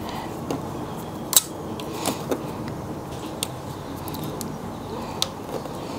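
A handful of sharp metallic clicks and taps from an Allen key and phone-mount hardware being worked on a motorcycle's handlebar, the loudest about a second and a half in, over a steady background hiss.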